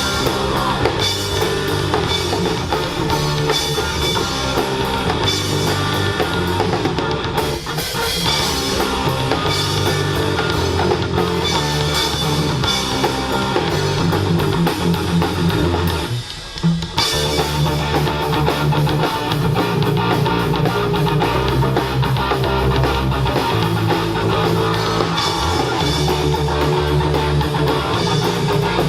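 Live rock band playing: electric guitar, bass and drum kit, with a brief break about sixteen seconds in before the band comes back in.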